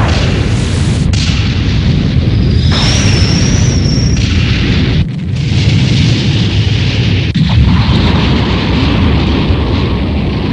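Animated sound effects of continuous rumbling explosions and destruction, changing abruptly a few times, with a wavering high whine for about two seconds near the start.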